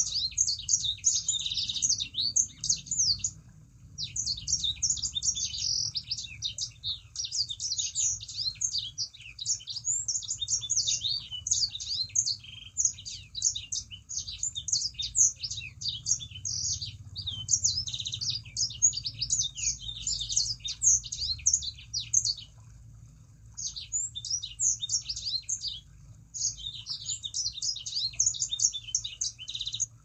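A sanger songbird singing a long, fast, chattering song of rapid high notes, broken by a few brief pauses, over a faint low hum.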